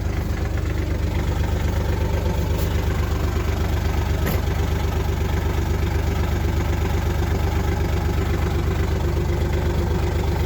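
Kawasaki Mule side-by-side's engine running steadily under load while towing a loaded trailer: a dense low hum with a fast, even pulse. A faint click sounds about four seconds in.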